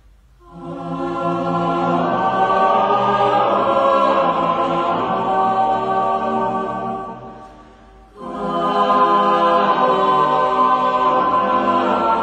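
Slow choral music of long held voices: one phrase swells and fades away, and a second phrase enters about eight seconds in.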